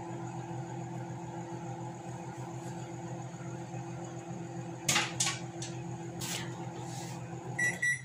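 Microwave oven running with a steady hum while popcorn cooks inside, with a few kernels popping sharply about five to six and a half seconds in. Near the end a short electronic beep sounds and the hum stops.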